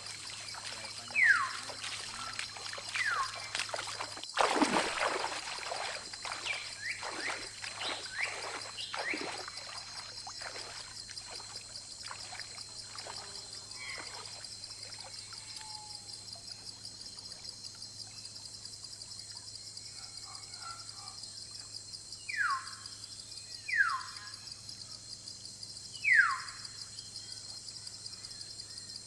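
A steady, finely pulsing chorus of forest insects, with a bird giving short, sharp, downward-sliding whistles: a flurry of them in the first ten seconds, then three more spaced a second or two apart near the end.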